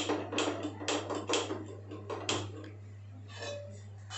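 Hand-held spark gas lighter clicked repeatedly at a gas stove burner, a quick run of sharp clicks about two or three a second, to light the burner. The clicks stop about two and a half seconds in, followed by a faint metallic ring of the steel pan being lifted.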